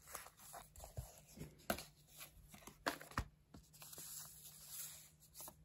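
A vinyl LP being handled and slid into a white paper inner sleeve: faint paper rustling and sliding with scattered light clicks and a couple of sharper knocks.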